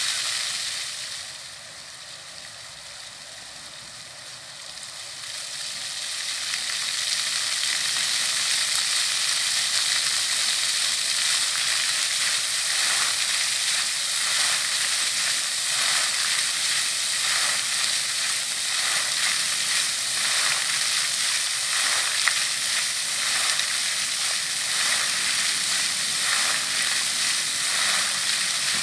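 Fountain water jets splashing down onto a stone basin. The sound is soft for the first few seconds while the jets are low. It then swells over a few seconds to a steady rush of falling water as the jets shoot high.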